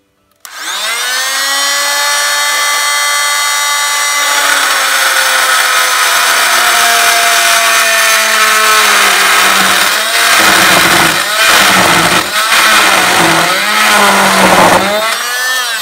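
Worx variable-speed oscillating multi-tool with a carbide-tipped blade cutting through a copper pipe: a loud, steady whine with many overtones that starts about half a second in. From about ten seconds in the pitch wavers up and down repeatedly, and the tool winds down near the end.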